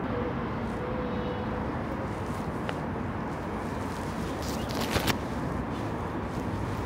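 Steady outdoor background noise, low and even. It carries a faint thin tone in the first two seconds and a short cluster of sharp clicks about five seconds in, which is the loudest moment.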